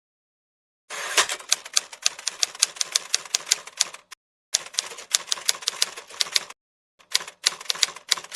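Typewriter sound effect: three runs of rapid keystroke clacks, each stopping dead into silence.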